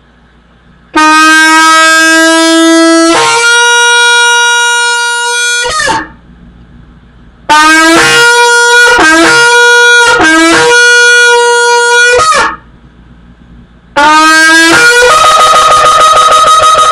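A long, twisted horn shofar blown in three blasts. The first holds a low note, then steps up to a higher one. The second is broken into short notes switching between low and high. The last climbs from low to a higher note. It sounds well with its newly remade mouthpiece.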